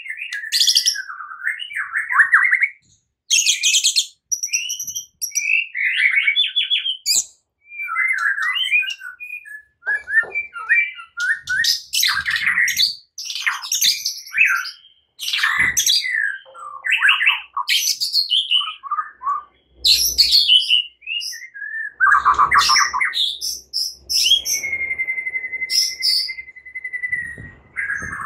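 White-rumped shama (murai batu) singing a varied, fast fighting-style song of whistles, trills and sharp chattering notes in quick phrases, ending with one long held whistle.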